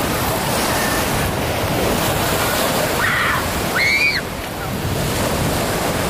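Small lake waves breaking and washing up the sand shore in a steady rush, with wind buffeting the microphone. Two short high cries, a person's shout or squeal from the water, stand out about three and four seconds in.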